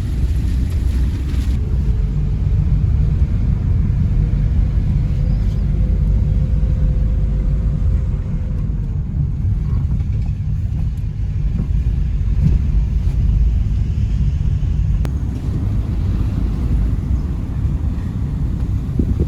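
Steady low rumble of a moving vehicle, with a faint engine note that climbs slowly and then falls away about nine seconds in.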